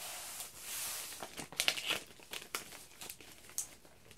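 Plastic poly mailer crinkling and rustling as it is handled and pulled open around a box inside: a steady rustle over the first second, then scattered short crinkles.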